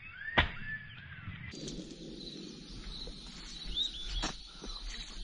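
A single sharp gunshot crack about half a second in, with thin, gliding whistling-duck whistles around it. After that come scattered high chirping bird calls.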